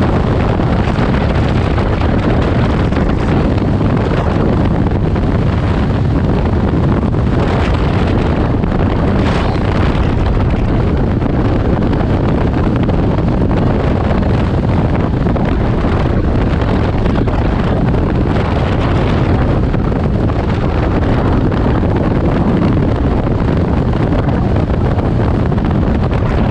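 Heavy wind noise on the microphone from riding a Can-Am Ryker Rally three-wheeler at road speed, with the machine's engine and tyre noise underneath.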